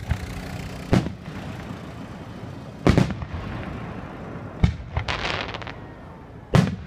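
Aerial firework shells bursting overhead: four sharp booms about two seconds apart, with a quick run of crackles after the third.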